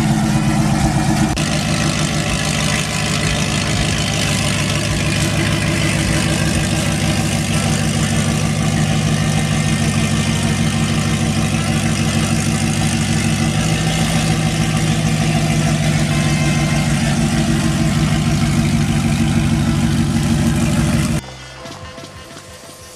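Acura TSX's engine idling steadily just after a cold start. The sound stops abruptly near the end.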